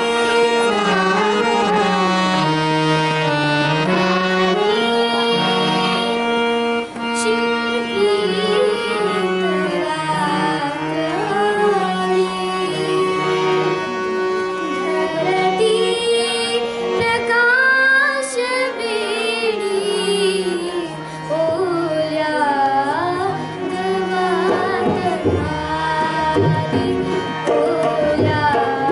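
Harmonium and tabla accompanying a song, with a girl's voice singing over the held harmonium notes and the tabla rhythm.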